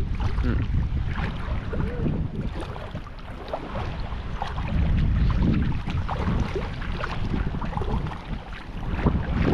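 Wind buffeting the camera microphone in a steady low rumble, over sea water lapping and splashing in the shallows, with faint voices now and then.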